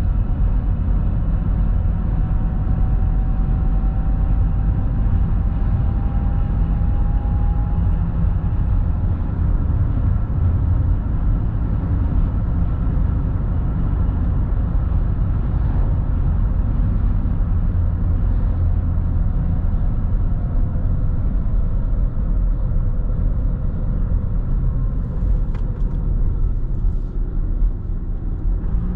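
A car driving at highway speed, heard from inside: a steady low rumble of tyres and engine.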